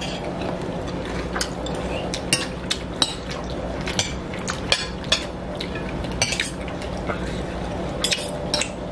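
Metal forks and spoons clinking and scraping against ceramic bowls while eating: irregular sharp clicks about twice a second, over a steady low hum.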